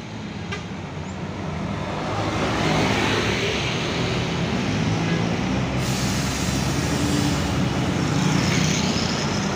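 Heavy road traffic led by a large coach's diesel engine as the coach moves off, the engine sound building about two seconds in. A high hiss joins about six seconds in, and a motorcycle passes close near the end.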